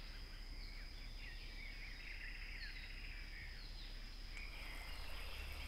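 Faint forest ambience: small birds chirping in short falling calls over a steady high insect drone.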